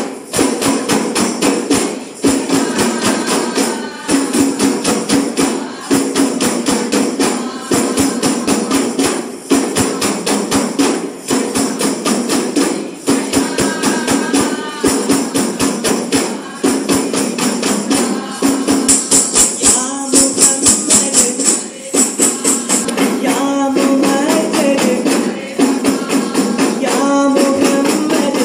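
A group of arabanas, large single-headed frame drums, beaten together by hand in a fast, steady rhythm that runs in repeating phrases of about two seconds. The strokes are the loudest thing throughout, with occasional chanted voices alongside.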